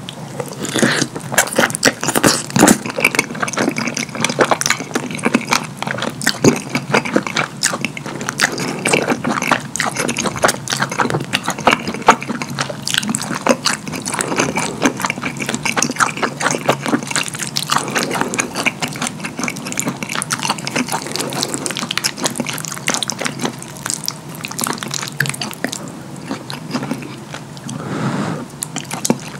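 Close-miked wet chewing and lip smacking on a mouthful of cheesy lasagna, a dense, uneven run of sticky mouth clicks and smacks.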